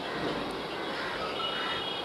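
Electric multiple unit local train rolling along the track: steady noise of wheels on rails.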